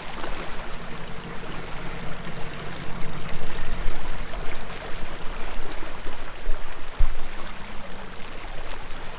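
Water churning and splashing in the prop wash of an 80-pound-thrust electric trolling motor pushing a pontoon boat, a steady rushing wash with a faint steady hum under it. A single low knock about seven seconds in.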